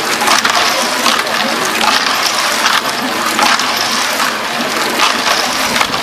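Wet concrete and gravel tumbling and scraping inside the turning metal drum of a homemade mini concrete mixer, a steady gritty rattle that swells roughly once a second.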